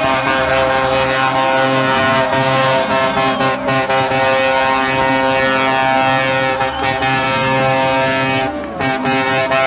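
Truck air horns sounding continuously, several tones held together. Near the end the horns briefly sag in pitch and dip, then resume.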